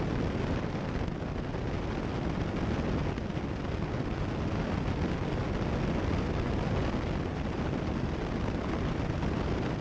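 Steady drone of a Cessna 172 Skyhawk's engine and propeller in flight, heard through the headset intercom feed: an even, low-heavy rush with no breaks.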